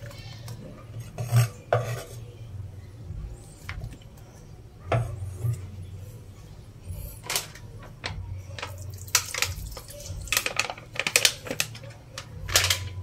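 Kitchen clatter of a frying pan and utensils: sharp knocks and clinks at irregular moments, coming thickest in the second half, over a steady low hum.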